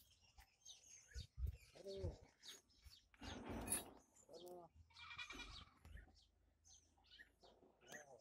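A goat bleating faintly a few times, in short wavering calls, with small birds chirping now and then. A brief rustling rush comes about three seconds in.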